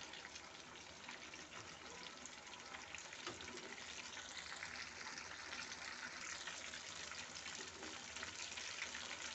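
Batter-coated fish pieces deep-frying in hot mustard oil: a steady fine sizzle full of tiny crackles.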